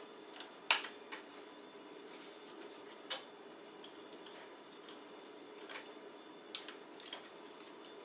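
Scattered small clicks and taps of a laptop RAM stick being fumbled at its slot while it is not yet seated, the sharpest click a little under a second in and a few lighter ones spread through the rest.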